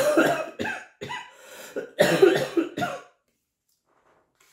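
A woman who is unwell coughing into her hand, a fit of several coughs over about three seconds.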